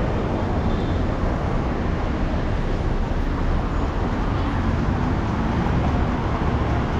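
Steady background noise of a busy city place: a continuous low rumble with general hiss and no single standout event.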